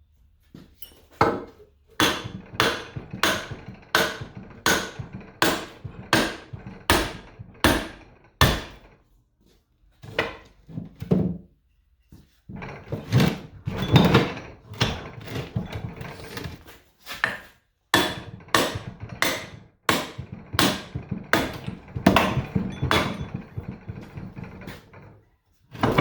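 Repeated hammer blows on an electric motor's stuck shaft, driving it out of the motor. The blows are struck at a steady pace of about two a second, with two short pauses about ten and twelve seconds in.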